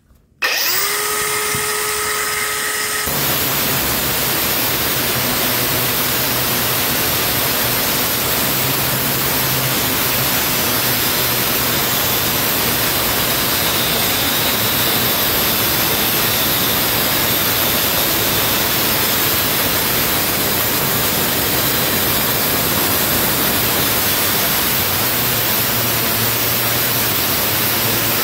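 Milwaukee M18 FUEL 6-inch cordless brushless angle grinder starting up about half a second in and spinning free with a steady whine. From about three seconds its segmented diamond blade bites into the rusted steel hinge and bolts, a steady harsh grinding that runs on.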